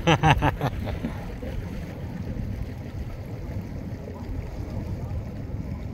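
A short voice sound at the very start, then steady low wind rumble on the microphone over lapping lake water.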